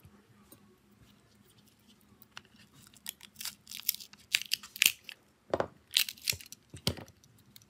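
Crinkling and tearing of thin plastic, in a run of sharp crackly bursts starting about three seconds in and loudest in the second half.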